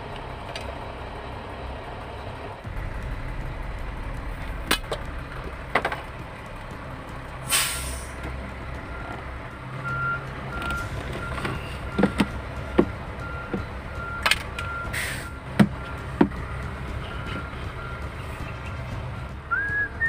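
Heavy truck with its engine running low and steady, letting off two short hisses of air. From about halfway a reversing alarm beeps about one and a half times a second, with a few sharp clicks and knocks in between.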